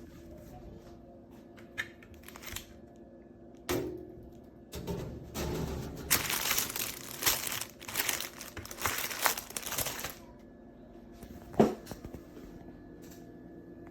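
Packaging crinkling and rustling as it is handled, loudest for about five seconds in the middle, with a few sharp knocks before and after.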